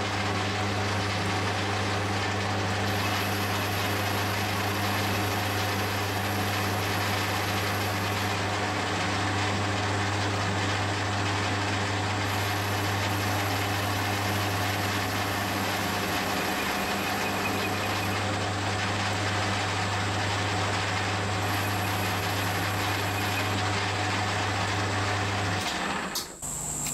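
Metal lathe running steadily with a strong low motor hum, its tool taking a facing cut across the front of a steel propeller driver. The hum and cutting noise stop near the end as the lathe is switched off.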